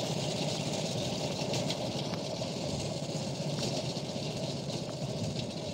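Engine of a machine cutting a kasuri methi (fenugreek) crop, running steadily.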